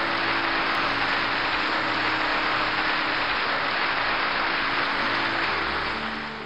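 Crowd applauding steadily, a dense continuous clatter of clapping that fades away near the end.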